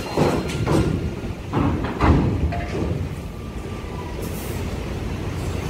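Heavy trucks rolling over a ferry's steel loading ramp: a run of loud clanks and thumps in the first few seconds over a low, steady engine rumble.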